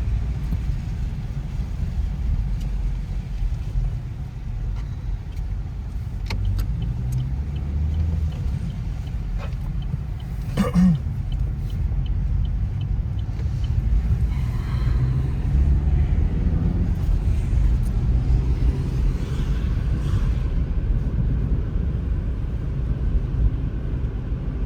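Steady low rumble of a car, heard from inside, with a run of light, evenly spaced ticks and one brief knock around the middle.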